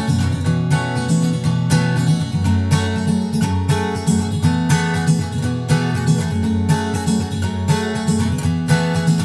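Background music: solo acoustic guitar, plucked notes at a steady pace.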